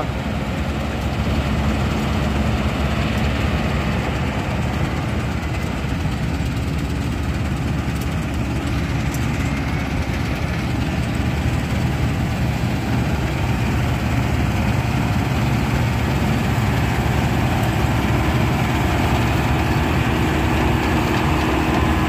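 New Holland 8070 combine harvester running steadily as it cuts and threshes a paddy crop, its diesel engine the main sound. It grows a little louder near the end as the machine comes close.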